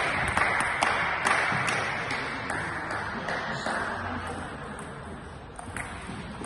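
Spectators applauding a table tennis point, with a few sharp claps standing out at first. The clapping dies away over about four seconds.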